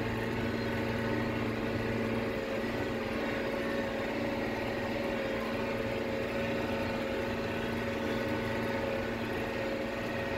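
Combine harvester running steadily while driving slowly with a loaded grain tank, heard from inside the cab as a constant hum of several steady tones. One low part of the hum drops away about two seconds in.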